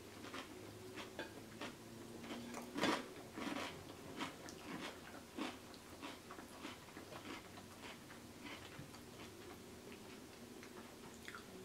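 Close-miked eating sounds of a person chewing a mouthful of bowtie Caesar pasta salad: soft wet chewing with scattered small mouth clicks and smacks, one louder about three seconds in.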